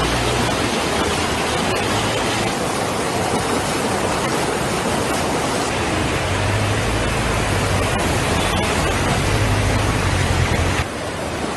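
Floodwater rushing in a loud, steady torrent, with a low rumble that comes and goes; the sound drops a little near the end.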